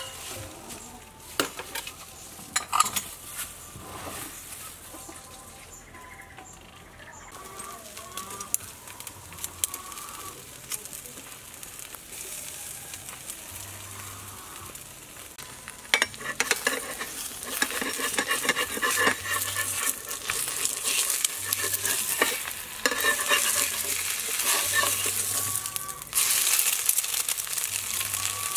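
Food sizzling loudly as it cooks on the fire, a dense hiss from about halfway through with a few brief breaks. Before that, quieter clinks and knocks of bowls and utensils being handled.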